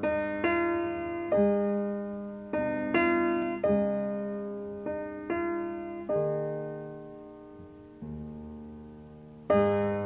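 Solo piano music: slow chords struck about once a second, each left to ring and fade, with one long chord dying away in the middle before louder chords come in near the end.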